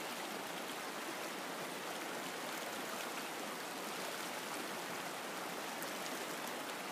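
A shallow mountain river rushing over rocks and small cascades, a steady even rush of water.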